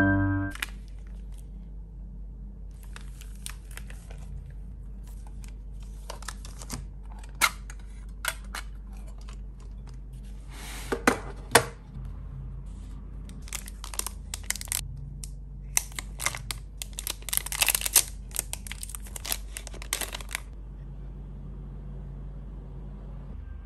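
Clear plastic wrappers crinkling and rustling as they are handled, in irregular bursts. The crinkling is densest over the last several seconds, when a plastic-wrapped watercolour palette is unwrapped and its clear hinged case opened, with some tearing.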